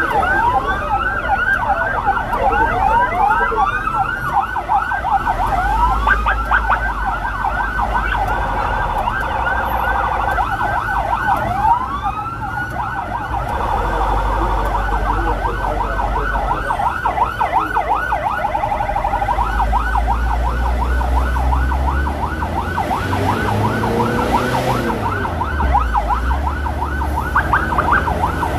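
Electronic emergency sirens on a fast repeating yelp, with slower rising whoops overlapping it for the first dozen seconds or so. A low rumble of engine and road noise runs underneath.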